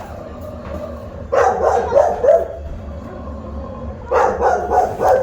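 Dog barking in two short clusters of quick barks, the first about a second in and the second about four seconds in.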